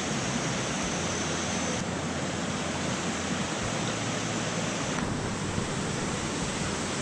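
Mountain stream rushing over rocks: a steady hiss of flowing water.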